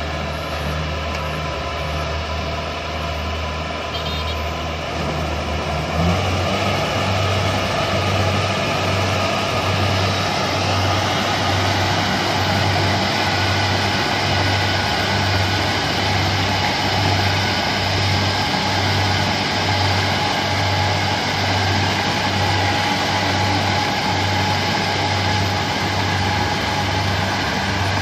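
Tracked rice combine harvester running while it cuts and threshes rice: a steady engine and machinery drone, with a low pulse repeating about once a second from about six seconds in, where it also gets a little louder.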